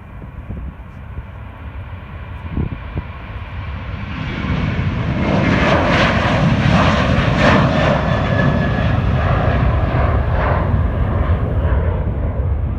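An airliner's engines passing close by: the sound builds over several seconds, peaks about halfway through with a steady whine that drops slightly in pitch, then eases off. A low rumble from strong wind on the microphone runs underneath.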